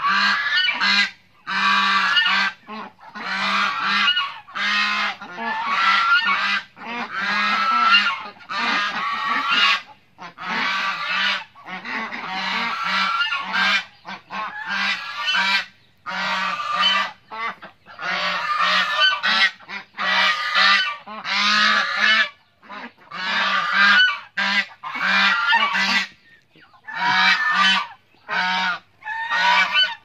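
A flock of domestic geese honking almost without pause, many loud calls overlapping, with a few brief lulls.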